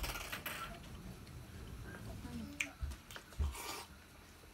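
Quiet eating sounds: miso soup sipped from a bowl held with chopsticks, and chewing, with a few light clicks and two soft knocks about three seconds in.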